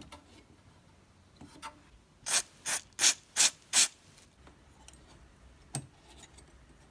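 Vacuum tube being worked loose from its socket and spring retaining clip on a metal tube-amplifier chassis: five short scraping rubs in quick succession, then a single click later on.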